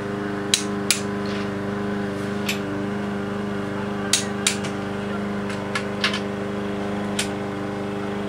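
Click-type torque wrench and ratchet on cylinder head bolts: a series of sharp clicks, several coming in pairs, over a steady low hum.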